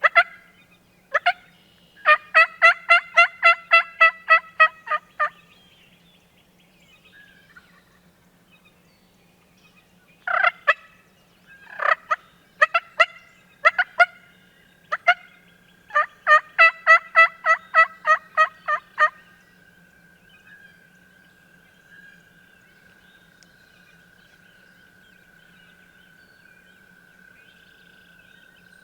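Turkey yelping: a run of about a dozen yelps, around four a second, about two seconds in and again after about sixteen seconds, with single yelps and clucks between them. A faint steady high tone runs through the second half.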